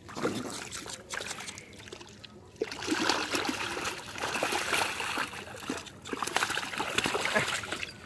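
Hands splashing and churning in shallow muddy water, a dense wet splashing that gets much louder about two and a half seconds in.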